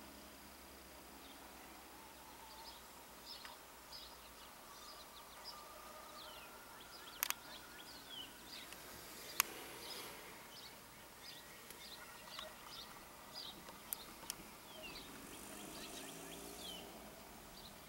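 Small birds chirping outdoors: many short, high, falling chirps scattered throughout. A few sharp clicks, the loudest sounds, stand out about seven, nine and fourteen seconds in.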